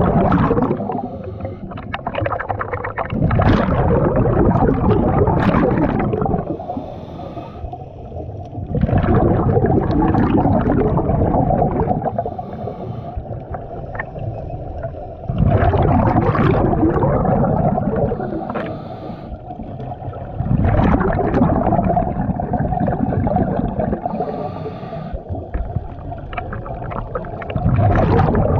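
Scuba diver breathing through a regulator underwater: loud bubbling exhalations about every six seconds, each lasting about three seconds, with quieter inhalations between.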